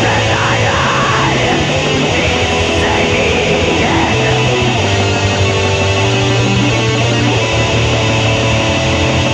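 Raw black metal: heavily distorted electric guitars in a dense, hissy wall of sound, at a steady loud level, the chords shifting every second or so.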